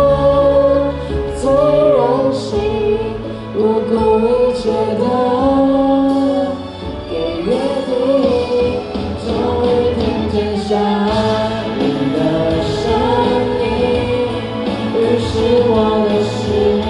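Karaoke singing of a slow Mandarin pop ballad over a backing track, the voices gliding through sustained melodic lines.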